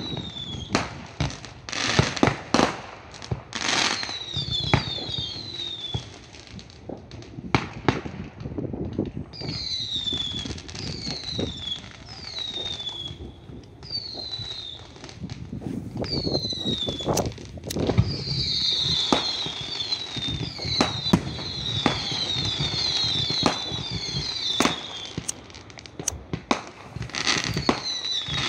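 Fireworks going off: a string of sharp bangs over a low rumble, with runs of short whistles that fall in pitch, crowding together about two-thirds of the way through.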